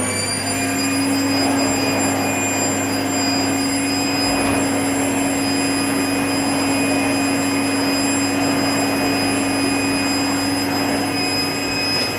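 Vax VX75 barrel vacuum cleaner's 2,400-watt motor running steadily at full speed, a loud, steady whine over a rush of suction air.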